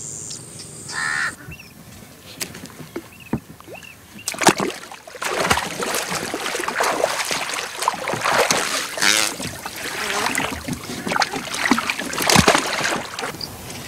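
Water splashing and sloshing around a wooden boat as a man wades beside it, with scattered sharp knocks. A few short bird chirps come in the first few seconds.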